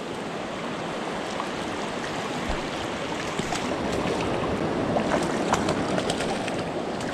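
Shallow, rocky stream rushing over and around boulders in a steady wash of water close to the microphone, with a few light splashes in the second half.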